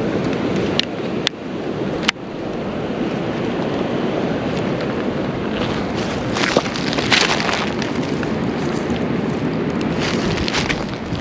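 Steady rushing wind noise buffeting a body-worn camera's microphone. There are three sharp clicks in the first two seconds, and bursts of rustling around the middle and near the end.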